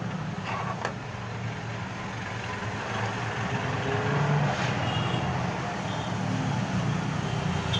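Steady low rumble with hiss, a constant background noise with no distinct events.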